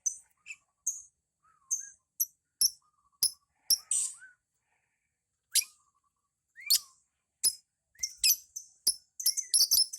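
Lovebird giving sharp, separate high chirps with short rising and falling squeaks. Near the end they speed up into a fast, even run of chirps: the start of its ngekek chattering song.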